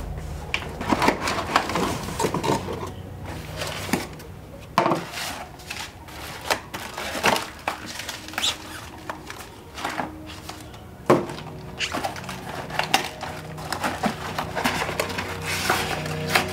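Cardboard bike box and its paper-wrapped packing being handled: irregular rustling, scraping and knocks of cardboard and paper, with a sharper knock about eleven seconds in.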